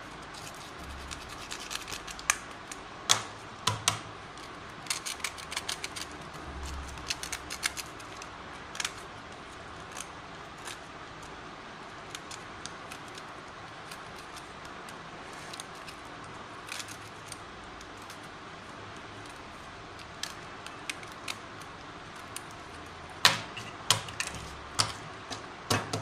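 Small screwdriver scraping and clicking against the plastic impeller housing and cover of a submersible cooler water pump, scratching out dirt and silt that have caked inside and jam the impeller. The scratches and ticks come in irregular clusters, busiest in the first ten seconds and sparse in the middle, with a few louder clicks and knocks near the end.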